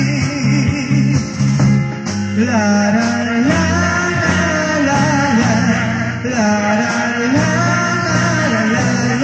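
Live rock-style dance band playing, electric guitar, bass guitar and drum kit with a voice singing, heard off an old cassette tape recording.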